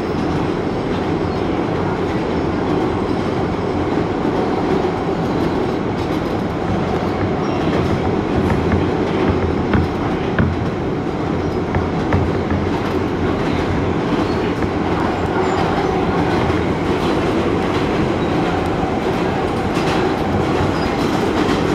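New York City Subway 7 express train running at speed, heard from inside the car: a steady rumble of wheels on rail, with a few sharp clacks over rail joints about halfway through.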